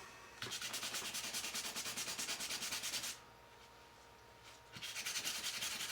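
Sandpaper rubbed in quick back-and-forth strokes over the cellidor plastic scale of a Victorinox Swiss Army knife, sanding off a printed logo. The strokes stop for nearly two seconds in the middle, then start again.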